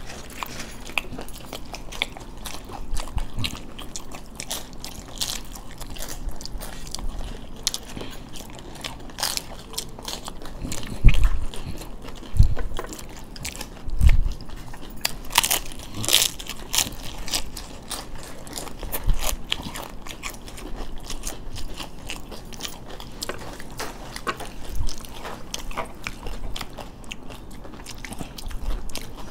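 Close-up crunching and chewing of papdi chaat, crisp fried wafers with toppings, eaten by several people at once as a steady run of irregular crisp crunches. A few louder dull knocks come a little over a third of the way in.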